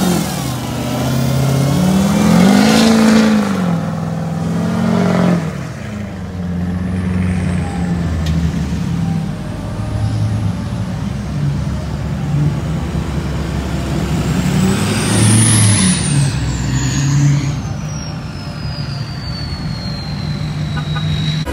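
Lifted diesel pickup's engine revving up and down twice as its tyres spin in loose beach sand, then lifted trucks' engines running as they drive slowly past, with another rev about fifteen seconds in. Near the end a high whistle falls slowly in pitch.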